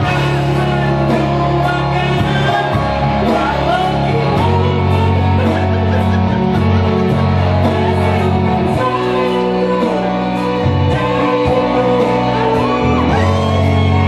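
A woman singing into a microphone over amplified backing music with a steady bass line.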